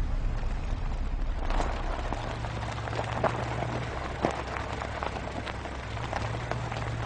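Vehicle driving along a dirt track: a steady low engine and road rumble, joined about a second and a half in by a dense crackling and popping of tyres over dry leaves and gravel.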